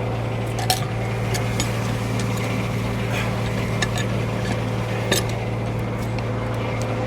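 Frick No. 1 sawmill running at a steady speed, a constant mechanical hum with a few sharp clinks and knocks, the loudest about a second in and about five seconds in.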